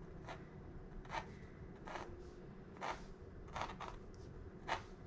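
Pencil sketching on a stretched canvas: a series of short strokes, about eight in five seconds, as lines are drawn.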